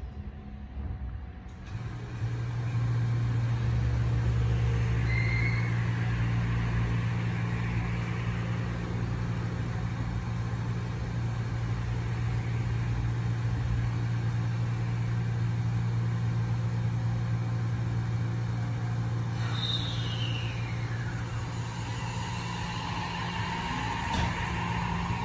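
Shin-Keisei 80000 series electric train standing at the platform with a steady low hum. About three-quarters of the way through, a sudden hiss of air brakes releasing is heard, followed by a whistle falling in pitch and the electric motor whine rising as the train starts pulling away.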